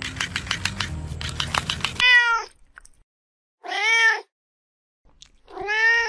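Domestic cat meowing three times, each meow rising and then falling in pitch, with short pauses between. Before the meows, a run of rapid clicks stops suddenly about two seconds in.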